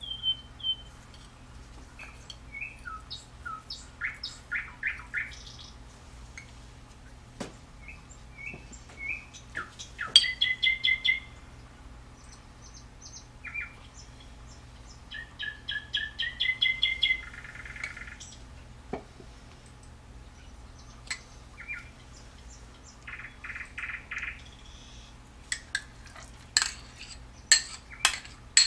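Small birds chirping in short, repeated phrases of quick notes, with a few sharp clicks in between.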